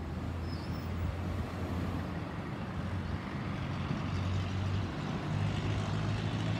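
Jet engine rumble of an Airbus A320-216 with CFM56-5B turbofans flying over at height: a steady, low, noisy roar that builds slightly towards the end.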